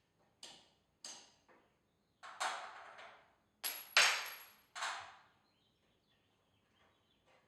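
Metal knocks and scraping on a garage door's torsion shaft hardware as it is worked at: a few short knocks, then longer scrapes, the loudest about four seconds in with a brief high ring.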